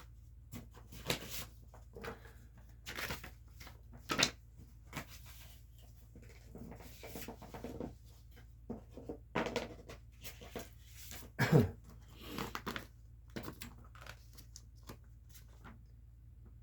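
Irregular scrapes, clicks and taps of hands handling and working loose the unscrewed bottom case of a MacBook, with the loudest scrape about eleven and a half seconds in.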